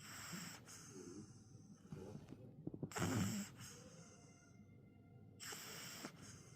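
Mini pug snoring: a series of noisy breaths, with a fluttering rattle about two and a half seconds in that runs straight into the loudest breath, and another breath near the end.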